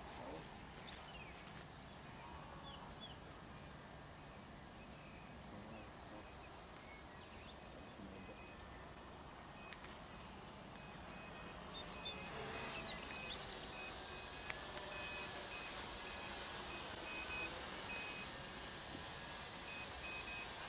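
Faint open-air field ambience with a few short high chirps about halfway through, and a thin high note repeating evenly through the second half.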